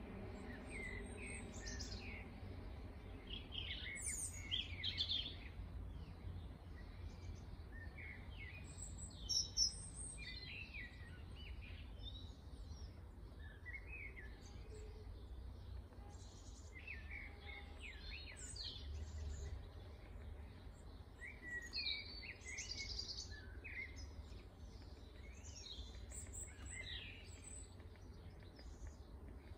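Small garden songbirds chirping and twittering in many short, quick phrases, louder around four and nine seconds in, over a low steady rumble.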